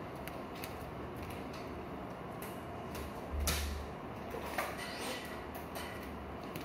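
Bare feet stepping on a tiled floor close by: a soft thump about halfway through, then a couple of lighter knocks, over a steady low hiss with scattered faint clicks.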